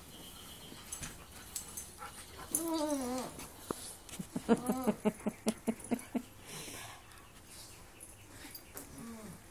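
Dogs vocalizing in play: a drawn-out call falling in pitch about two and a half seconds in, then a quick run of short pitched yelps, about five a second for nearly two seconds, and a brief falling call near the end.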